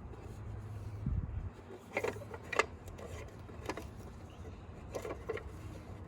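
A few light clicks and knocks, as of hard objects being handled, over a steady low hum.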